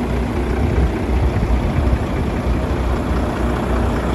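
Volvo heavy truck's diesel engine idling steadily with a low rumble.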